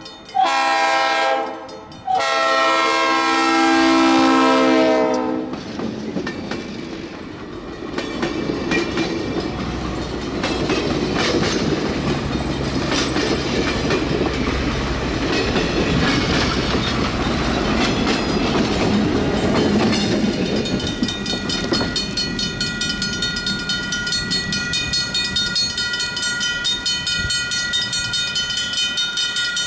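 Leslie RS3L chime horn on an EMD GP38 diesel locomotive sounding two blasts, the second about three seconds long. The locomotive and its passenger coaches then roll past, with wheels clicking over the rail joints. Near the end a steady high whine with an even pulsing rhythm comes from an approaching diesel locomotive.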